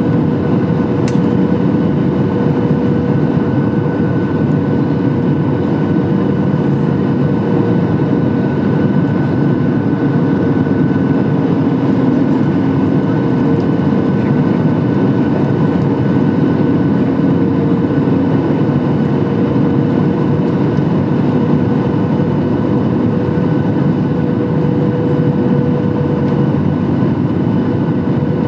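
Steady cabin roar of a Boeing 737 MAX 8 in flight: airflow and CFM LEAP-1B engine noise with a steady whine over it.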